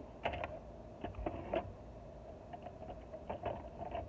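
Light, scattered knocks and rustles of an MDF workpiece with a paper pattern being set down and shifted by hand on a scroll saw's metal table, over a faint steady hum. The saw is not running.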